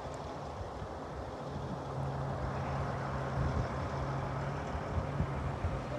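Kenworth semi-truck's diesel engine running, with a steady low hum that sets in about a second and a half in over a wash of road noise.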